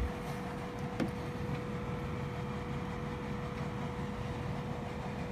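Steady mechanical room hum with one constant tone, and a single sharp click about a second in as a plastic tool case is opened.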